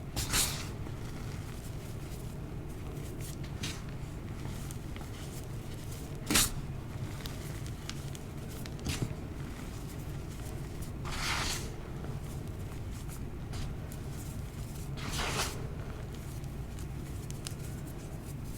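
Dyed gym chalk being crushed by hand, giving a few separate soft crunches with pauses between them and one sharp snap about six seconds in. A steady low hum runs underneath.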